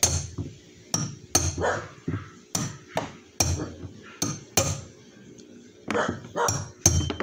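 Hammer blows on metal: about a dozen sharp, irregular strikes, each with a short ring, with a pause of about a second partway through, while working on a washing machine's drum bearing.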